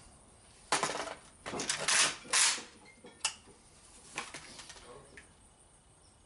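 A few short bursts of metallic clinking and rattling, with two single clicks later: metal gear being handled, not gunshots.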